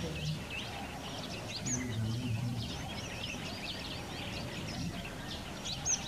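Many small birds chirping at once: a busy chorus of short, high chirps over steady outdoor background noise, with a brief low hum about two seconds in.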